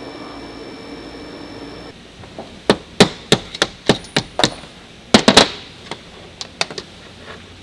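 A milling machine runs with a steady hum while a tap threads a hole in aluminum plate. After a cut, a hammer strikes a steel pin held upright in an aluminum bracket: about ten sharp, ringing metallic blows in quick succession, then a few lighter taps.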